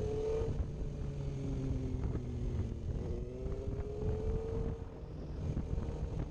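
Suzuki GSX-R750 inline-four sport bike engine running under way. Its pitch climbs as it revs up, once ending about half a second in and again from about three to five seconds.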